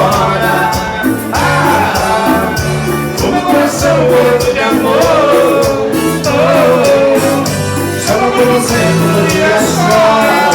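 Band music: a gliding lead melody over a bass line that repeats in a steady pattern.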